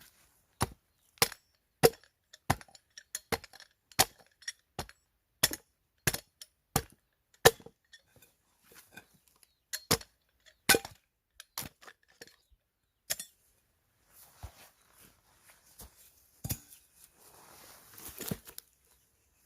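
A series of sharp, hard blows on wood, about one to two a second at first and then more spaced out, with a short scuffing rustle near the end.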